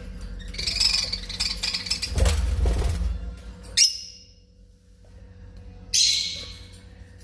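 Lovebirds calling: shrill chattering in the first half, then two sharp, loud squawks, about four seconds in and about six seconds in.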